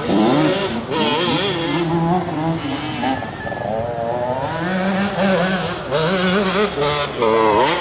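Motocross motorcycle engines revving on the track, their pitch rising and falling repeatedly with throttle and gear changes, steadier for a stretch about halfway through.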